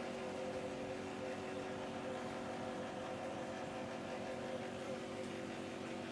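Aquarium pump running: a steady hum of several tones over an even hiss of moving water.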